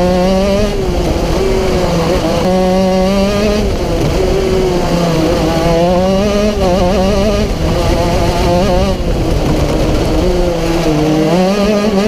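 Racing kart engine running hard at high revs, its pitch dropping and climbing again several times as the kart brakes for corners and accelerates out of them.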